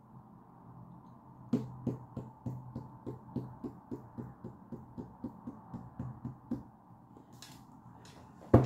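Fingertips tapping on a tabletop in a steady rhythm of about three taps a second for some five seconds, then a single louder thump on the table near the end.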